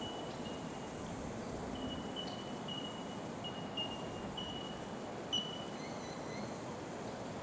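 Bell miners (bellbirds) calling: a scatter of clear, bell-like "tink" notes, about ten in all, each struck sharply and held briefly, at slightly different pitches from several birds, over a steady background hiss.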